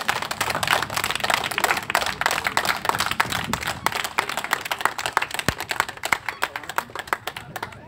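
A crowd clapping, many hands at once, thinning out and getting quieter toward the end.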